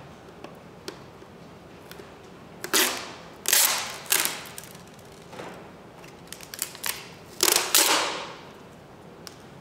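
Tape being peeled off the plastic printer by hand: several short, sharp ripping bursts, the longest near the end, with a few small clicks of handling between them.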